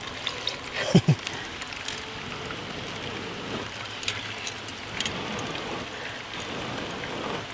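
Small fish frying in hot oil in a skillet: a steady sizzle with scattered crackling pops.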